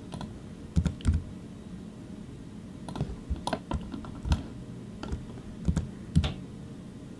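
Computer keyboard keys being tapped: about a dozen sharp keystrokes in irregular clusters, some in quick pairs, over a low steady room hum.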